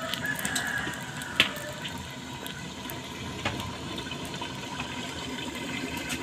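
Jackfruit-and-prawn curry simmering on low heat under the lid of an aluminium kadai: a steady watery hiss and bubbling, with a few faint clicks.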